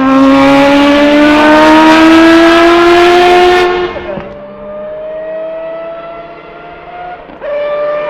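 Mazda 787B's four-rotor rotary engine accelerating hard at high revs, its pitch climbing steadily. About four seconds in, the pitch dips on an upshift and the sound drops sharply in loudness and brightness, then climbs again. Another upshift comes near the end.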